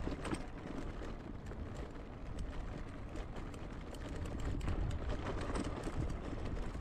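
Wind rumbling on the microphone and a rapid rattling clatter while an electric scooter is ridden over rough ground.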